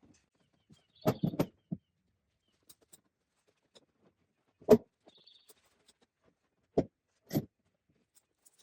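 Fence posts being handled and loaded, giving a few separate knocks and clunks: a quick cluster about a second in, one loud knock near the middle, and two more near the end.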